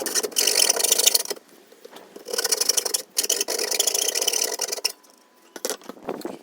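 A hand tool scraping over wood in two long passes, the second about twice as long as the first.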